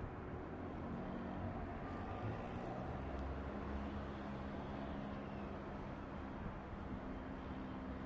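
Embraer KC-390's twin IAE V2500 turbofan engines running at a distance: a steady low rumble with a droning hum.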